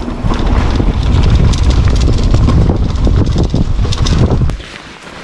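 Wind buffeting the microphone while a mountain bike rolls fast over a rough dirt trail, with many short clatters and knocks from the bike over the bumps. The noise drops away sharply near the end.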